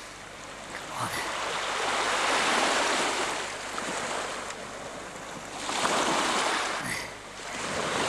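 Small waves washing in over a shallow rocky shore, two swells of surf that rise and fall about four seconds apart.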